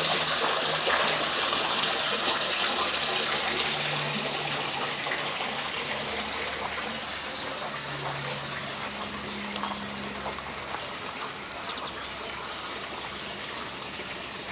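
Water from the three spouts of a stone wall fountain splashing steadily into its basin, growing gradually fainter. Two short high chirps, likely a bird, come about halfway through.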